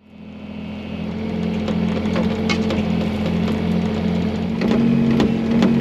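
Excavator engine running steadily, heard from inside the cab, with scattered clicks and rattles; the hum fades in over the first second.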